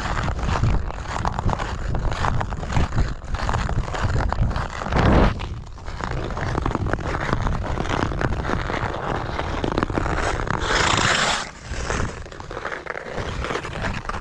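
Ice skate blades scraping and cutting across frozen lake ice in repeated strokes. A longer, brighter hiss of about a second comes late on.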